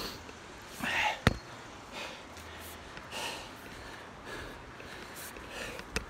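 A crane climber's heavy breathing close to the microphone, a soft puff of breath about every second, with one sharp knock about a second in.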